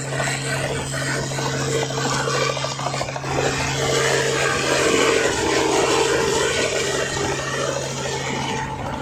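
Light helicopter's engine and main rotor running at takeoff power as it lifts off the pad: a steady hum over a whirring rush, growing louder a few seconds in.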